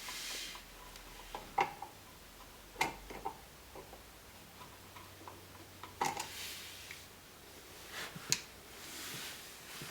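Scattered light clicks and taps of hand tools and electrical parts being handled, with a few short soft rustles.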